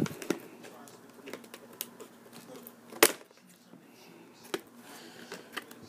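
Scissors cutting through a hard plastic blister pack: scattered small clicks and crackles of the stiff plastic, with one sharper snip about three seconds in and another about a second and a half later.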